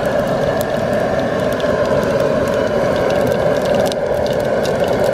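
Powerful propane burner running steadily under a stainless steel pot, with whole spice seeds frying in hot oil as scattered small crackles and pops that grow more frequent toward the end.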